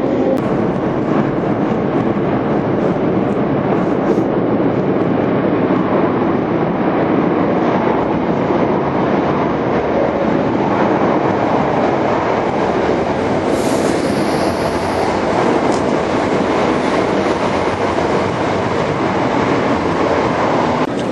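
Electric train running into an underground station platform out of the tunnel: a steady loud rumble echoing off the walls, with a brief high hiss about two-thirds of the way through.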